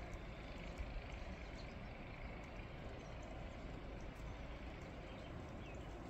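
Outdoor ambience in a spring snowstorm: a steady low rumble and hiss, with a few faint ticks scattered through it.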